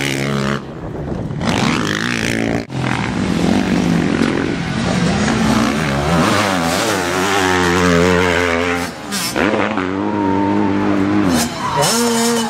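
Motocross dirt bike engines revving, the pitch rising and falling over and over with the throttle.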